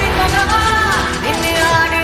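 Background music: a gliding melody over a heavy bass beat.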